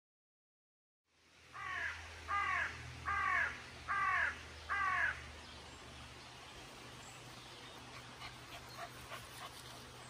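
An animal calling five times in a regular series, each call about a third of a second long and falling in pitch, over a steady low rumble; a few faint short chirps follow near the end.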